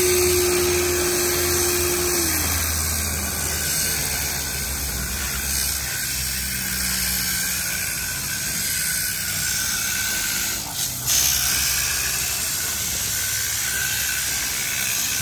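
Spray-extraction upholstery cleaner's vacuum motor running with a steady whine over a rushing noise, its pitch dropping about two seconds in as the motor winds down.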